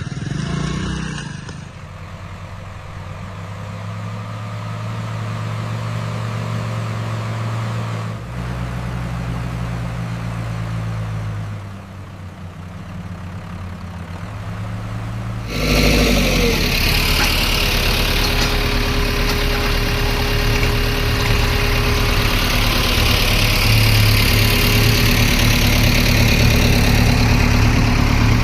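Heavy diesel machinery engine running steadily, then suddenly louder and noisier a little past halfway through.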